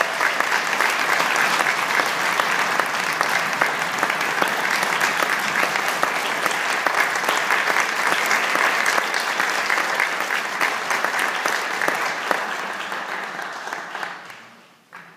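Audience applauding, a dense steady clapping that tapers off and dies away about a second before the end.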